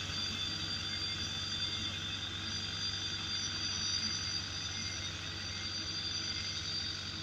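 Sakai road roller running steadily as it creeps forward: a constant engine hum with a steady high whine over it.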